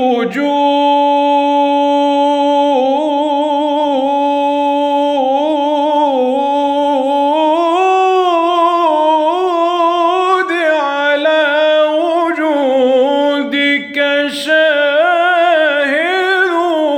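A solo male voice chanting an Islamic devotional ibtihal unaccompanied. It is one long melismatic phrase that opens on a held steady note, then climbs and winds through ornamented turns and wavering trills without a break.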